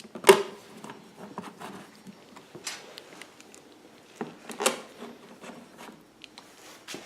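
Hands working on a portable generator's housing and wiring: light rubbing and scattered plastic clicks, with a sharp knock just after the start and another a little past halfway.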